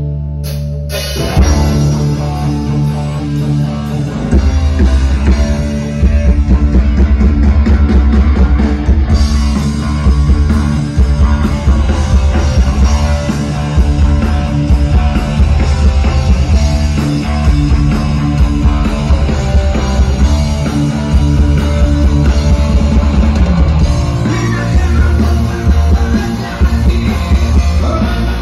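Live rock band playing: electric guitar, bass guitar and drum kit. After held notes, the band strikes in about a second in and rises to full, loud playing with heavy bass and drums about four seconds in.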